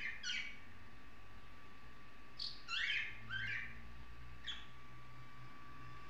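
Budgerigar chirping: a few short, quick calls, with a run of three or four close together in the middle. A faint steady high whine runs under the chirps.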